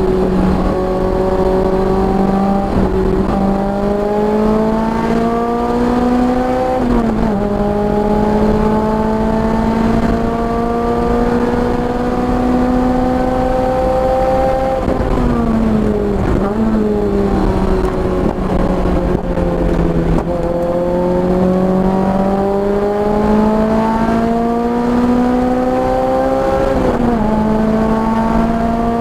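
Car engine running hard on track, its pitch climbing slowly under acceleration and dropping sharply three times at gear changes or lifts; after the middle drop it sags for a few seconds before pulling up again.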